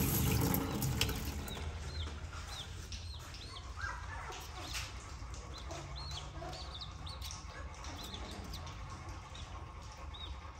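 Young chickens peeping: many short, high peeps scattered throughout, over a low steady hum.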